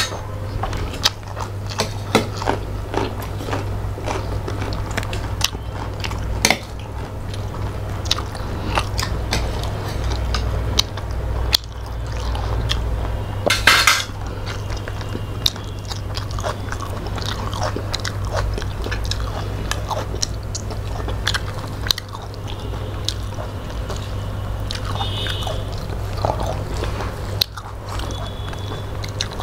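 Close-miked eating by hand: wet chewing and biting, with crunches and many small clicks of fingers and food against steel plates, over a steady low hum. One louder noisy burst comes about halfway through.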